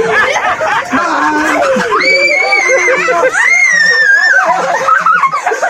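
Two long high-pitched screams over excited chatter and laughter. The first is held steady for about a second, starting about two seconds in. The second starts soon after and falls slightly.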